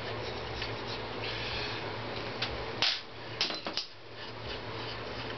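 Light metal clicks and clinks as studs and bolts are worked loose by hand from a Honda CX500 aluminium crankcase half, with a short scrape about a second and a half in. The sharpest click comes just before the three-second mark, followed by a quick run of clicks. A steady low hum sits under it all.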